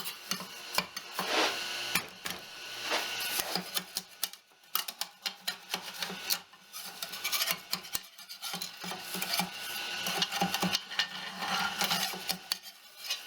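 3D-printed plastic parts being handled, with irregular clicks and rubbing as the captive nuts are turned in their printed pockets.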